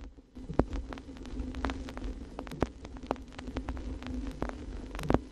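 Steady electrical hum of an open telephone line, with irregular crackling clicks over it. A few sharper clicks stand out, one about half a second in and one near the end.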